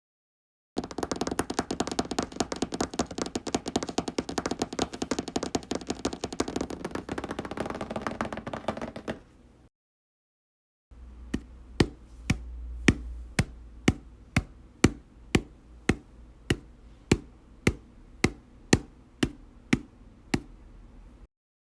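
Rapid, dense clattering taps for about nine seconds; then, after a short silent gap, single sharp knocks about two a second.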